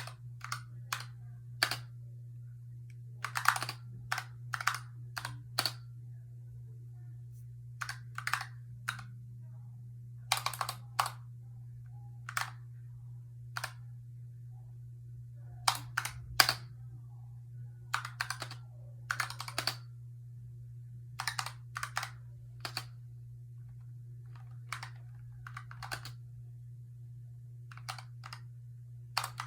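Razer Huntsman Tournament Edition optical keyboard being typed on slowly, keystrokes clicking in short irregular bursts with pauses between, over a steady low hum.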